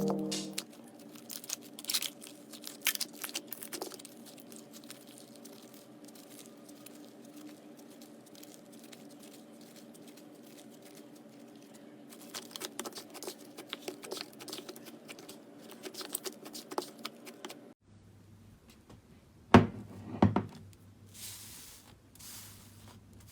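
Slime being handled: scattered small crackles and pops as it is squeezed and stretched, over a faint steady hum. After a cut, two louder squishes come about twenty seconds in, followed by soft hissy rustles.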